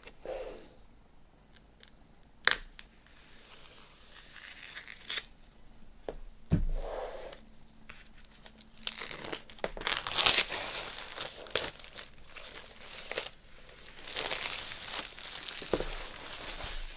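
Vinyl record packaging being torn open and crinkled by hand, with a few sharp clicks, a thump about six and a half seconds in, and louder stretches of tearing and rustling in the middle and toward the end.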